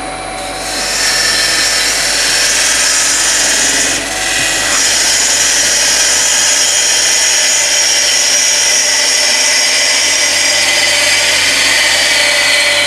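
Hollowing tool cutting inside a spinning wooden hollow form on a wood lathe: a steady hiss of the cut over the lathe's motor hum, easing off briefly about four seconds in.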